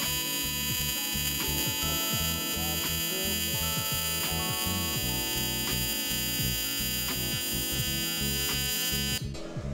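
AC TIG welding arc on thin aluminum buzzing steadily, with the foot pedal backed well off as the plate gets very hot near the end of the joint; the buzz cuts off abruptly near the end as the arc is broken. Background music plays underneath.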